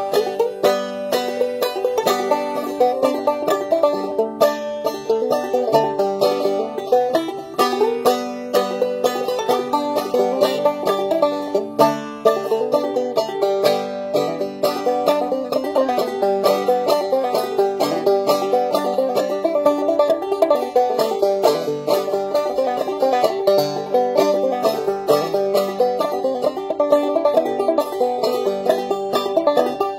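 Five-string banjo played solo in an old-time style, a steady, unbroken run of quick plucked notes.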